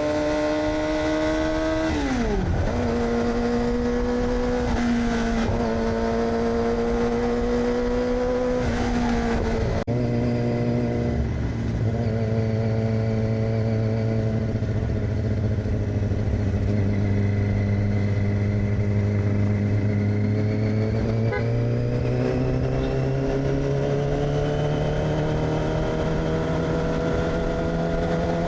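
2006 Yamaha R6's inline-four engine through an AR aftermarket exhaust, running under way. Its pitch drops sharply about two seconds in and again with a click near ten seconds, holds low and steady, then climbs steadily over the last several seconds as the bike accelerates.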